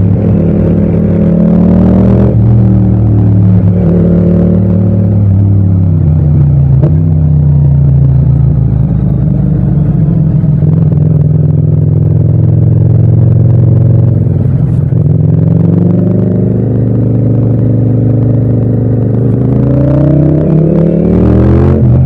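Parallel-twin motorcycle engine under way, its pitch rising and falling with the throttle: it climbs in the first few seconds, drops off, runs steadily through the middle, then climbs again near the end.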